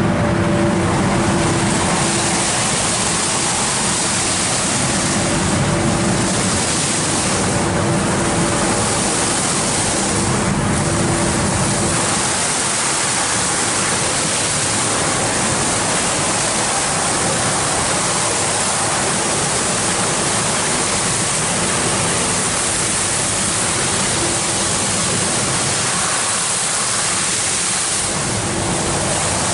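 Tammermatic UltraLux rollover car wash in its brush stage: the rotating wash brushes sweep over a car while water sprays, making a loud, steady rushing hiss. A steady low machine hum runs under it, fades out about twelve seconds in, and comes back near the end.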